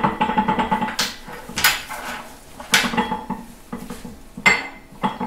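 Steel gears and a wrench clanking and clinking inside a Farmall MD's open transmission case as the differential and gear clusters are turned and handled by hand: a string of sharp metal knocks, several of them loud, each with a short ring.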